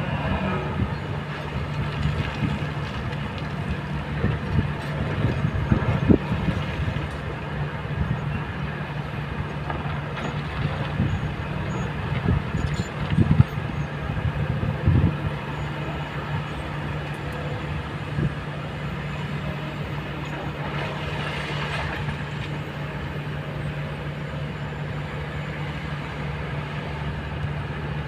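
Kobelco hydraulic excavator's diesel engine running steadily, with bursts of knocking and clatter as the steel bucket digs and scrapes through the rock pile, loudest about six and thirteen seconds in.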